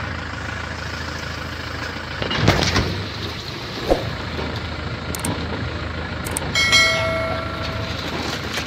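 Safari jeep's engine running at low revs under a noisy rumble, with a few sharp knocks. About seven seconds in, a steady pitched tone with overtones sounds for about a second.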